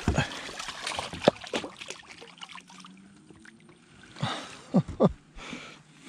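Handling noise from a just-landed largemouth bass with a crankbait deep in its mouth: dripping and splashing water with a run of clicks and knocks, then three sharp thumps about four to five seconds in.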